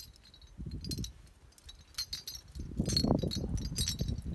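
Metal climbing gear clinking, carabiners and protection jingling on a harness rack in short, scattered chinks. From about two and a half seconds in, a low rumbling noise grows louder underneath.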